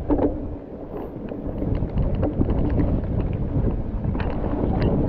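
Mountain bike moving over a rough trail: wind buffeting the microphone over a low rumble, with scattered clicks and rattles that grow more frequent toward the end.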